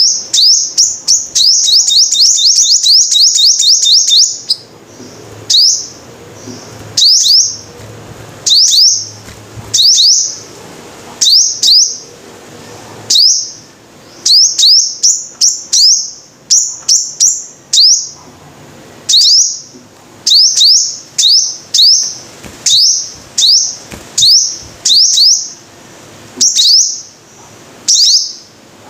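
Sunbird song: a fast run of high, sharp chirps over the first few seconds, then short bursts of two to four high notes about once a second.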